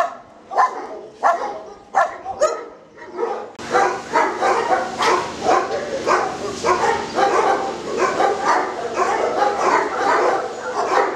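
Shelter dogs barking in their kennels. At first one dog barks at an even pace, about every half second. After a cut about three and a half seconds in, the barking is faster and denser, with barks overlapping.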